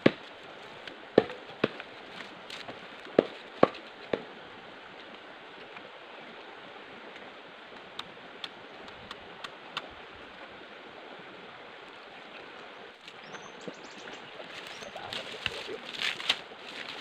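Dry coconut fronds and twigs being handled: a few sharp snaps in the first four seconds, then rustling and crackling that grows louder near the end as fronds are dragged over a pile, over a steady outdoor hiss.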